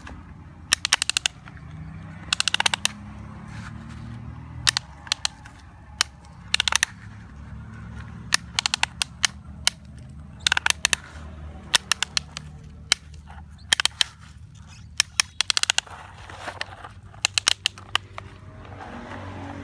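Hard plastic toy excavator clicking in quick bursts of sharp clicks, every second or two, as its arm and bucket are worked by hand. A low steady hum runs underneath.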